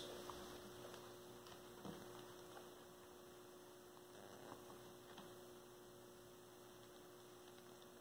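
Near silence: room tone with a faint steady hum and a few faint clicks.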